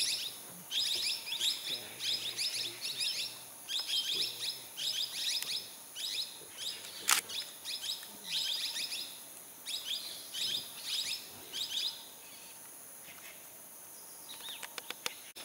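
Plum-headed parakeets calling: bursts of quick, shrill, high chirps, repeated over and over and dying away about three-quarters of the way through. A single sharp click sounds about halfway.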